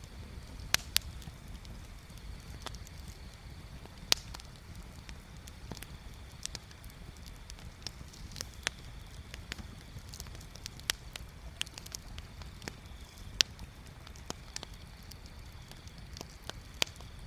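Bonfire crackling: irregular sharp pops and snaps of burning wood, a few much louder than the rest, over a steady low rumble.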